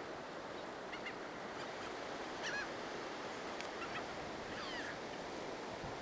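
Gulls calling in about four short cries over a steady rush of surf and wind.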